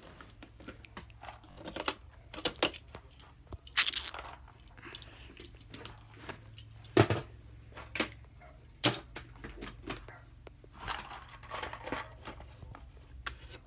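Goldfish crackers being chewed close to the microphone: irregular crunches, mixed with sharp clicks and knocks, the loudest about halfway through.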